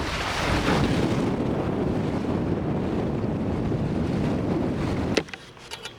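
Wind buffeting the microphone on a sailing boat underway, with water washing. It cuts off abruptly about five seconds in to a much quieter background with a few faint clicks.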